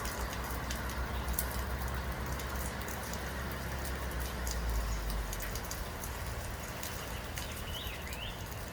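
Rain falling steadily, with many small drop patters over a low rumble. A brief gliding chirp comes near the end.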